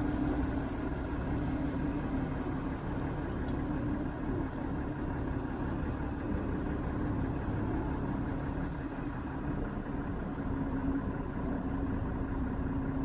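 A tour boat's engine running steadily: an even drone with a constant low hum.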